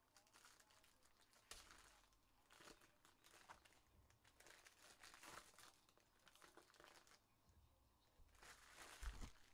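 Faint rustling and crinkling of trading cards and foil pack wrappers being handled and stacked, in irregular bursts, with a soft thump near the end.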